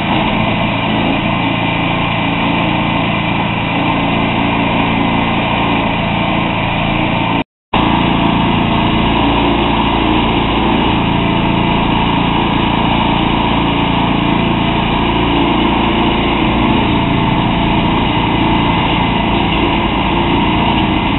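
Engine running steadily at a constant speed, likely driving the drum of the towable concrete mixer trailer, cut off for a moment by an edit about seven seconds in.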